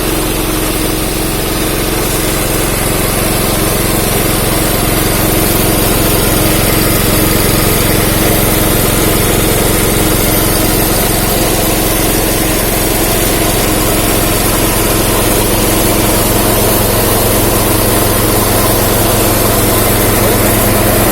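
Mini rice milling machine running with a steady, unchanging mechanical drone as it mills paddy into rice.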